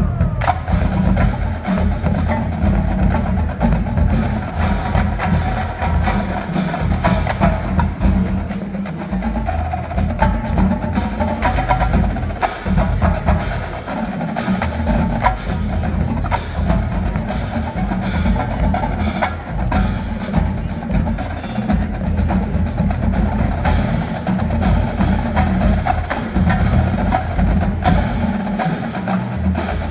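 Marching band percussion playing: a rapid stream of sharp drum and stick strikes over ringing mallet percussion and low drums.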